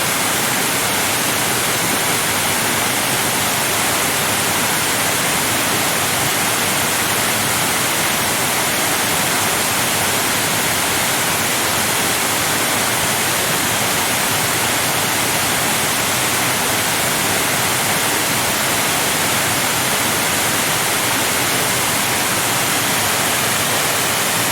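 Waterfall: water falling and flowing in a steady, even rush with a strong hiss.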